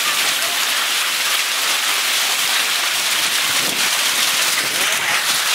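Heavy hail and rain pelting down together in a dense, steady hiss.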